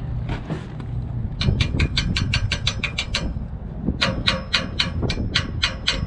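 Rapid light metallic tapping on a rooftop air conditioner's low pressure switch, in two runs of quick taps, about ten a second, to try to free a switch that reads open. A steady low hum runs underneath.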